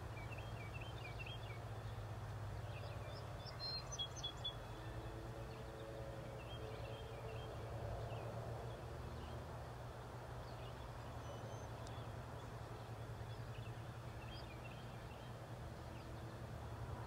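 Outdoor ambience of small birds chirping on and off, a quick cluster of louder chirps about four seconds in, over a steady low hum.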